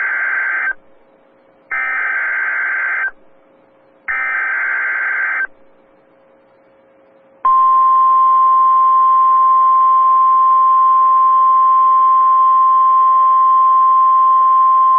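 Emergency Alert System SAME header on NOAA Weather Radio: three screeching bursts of digital data, each about a second and a half long and a second apart. About two seconds later the steady single-pitched weather radio alert tone starts and holds, signalling that a warning or watch message is about to be read.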